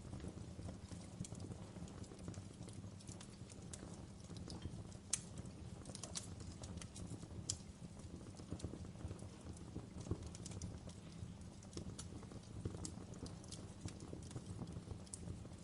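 Campfire burning: a steady low rumble of flames with irregular crackles and snaps of burning wood, a few sharper pops about five, six and seven and a half seconds in.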